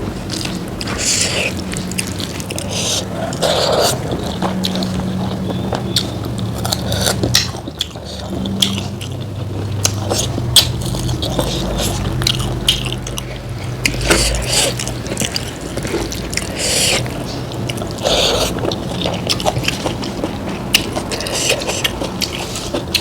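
Close-miked eating sounds: wet chewing and mouth noises with many sharp clicks and smacks, and short slurping or sucking sounds.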